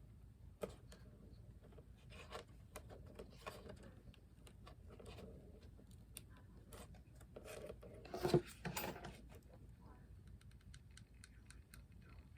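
Faint handling sounds of small crafting materials on a work surface: scattered light clicks and rustles, with a louder clatter about eight seconds in.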